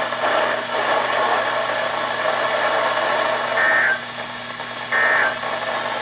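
Weather radio receiver hissing with static. About three and a half seconds in come two short bursts of warbling digital data tones about a second apart: the EAS/SAME end-of-message code closing the Severe Thunderstorm Warning broadcast.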